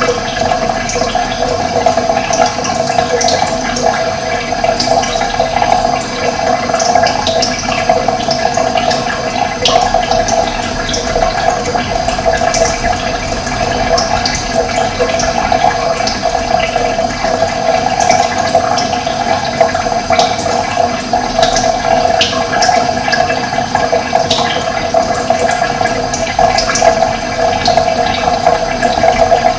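Running water flowing steadily, with many short, high bird chirps over it.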